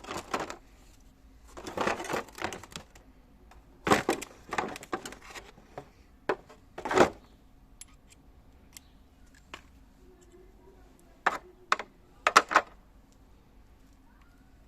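Handling noises from unpacking a cordless multi-tool kit: clusters of clicks, clatter and rustling of packaging and hard parts. The sharpest knocks come about four and seven seconds in, with a few quick clicks near the end.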